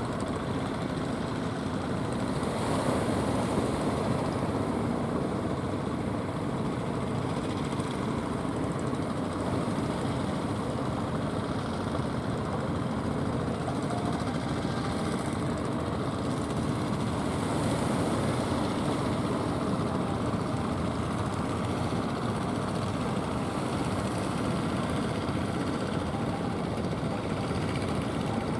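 Fishing boat engine running steadily at an even pace.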